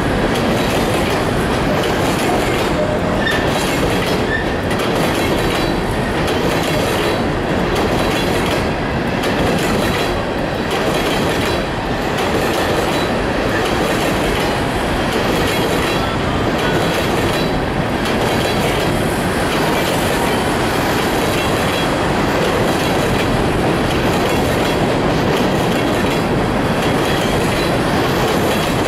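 Empty ballast hopper cars of a freight train rolling past at close range: a steady rumble of steel wheels on rail, with clickety-clack as the wheels cross rail joints.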